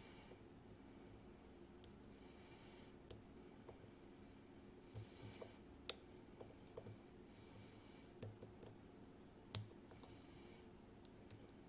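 Faint, scattered clicks of a pick pressing the pins of a KABA Penta dimple lock under tension, checking each pin to see whether it is set. They come irregularly, with sharper clicks about six seconds in and again about nine and a half seconds in.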